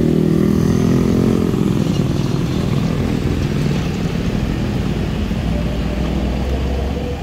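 Motorcycle and car engines running at a railway crossing. They are clearest in about the first second and a half, then give way to a steady low rumble.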